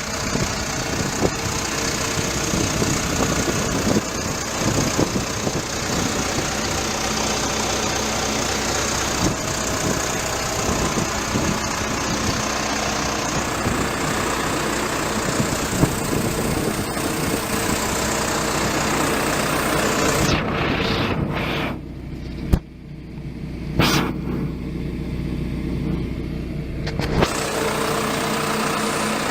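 Komatsu WB146-5 backhoe loader's diesel engine running steadily at idle. About two-thirds of the way through, the sound goes muffled for several seconds, losing its upper range, then returns to normal.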